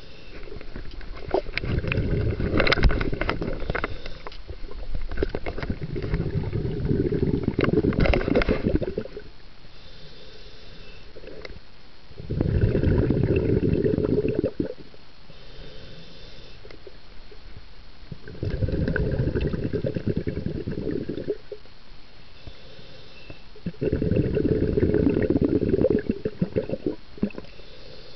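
Scuba diver breathing through a regulator underwater: bursts of exhaled bubbles gurgling for a few seconds at a time, about every six seconds, with a faint hiss of inhalation between them.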